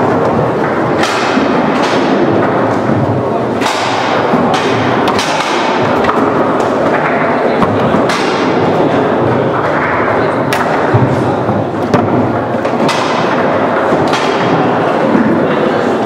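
Leonhart foosball table in play: the ball is struck by the plastic men, and the rods knock and clatter, giving sharp knocks at irregular intervals. Underneath is a steady background din.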